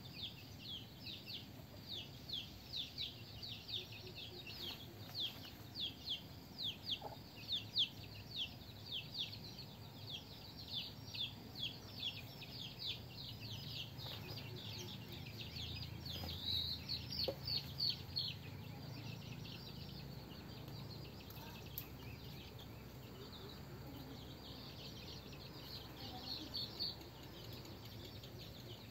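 Chicks peeping: repeated short, high, downward-sliding cheeps about two a second, with a flurry about two-thirds of the way through, thinning out toward the end. These are the calls of young chickens trying to follow the hen that has flown up into a tree to roost.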